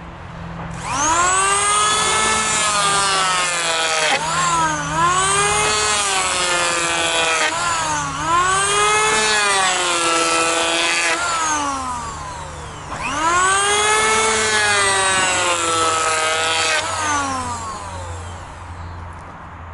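Electric hand planer shaving down the top of a wooden floor joist to level it. The motor whines up to speed, its pitch sags each time the blades bite into the wood and recovers between passes; it stops about two-thirds of the way through, then runs again and winds down near the end.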